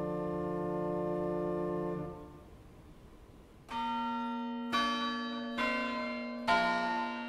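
A pipe organ holds the final chord of a chorale prelude, releases it about two seconds in, and leaves a reverberant tail. The church's chime bells then begin the eleven o'clock chime: four strokes about a second apart, each left ringing.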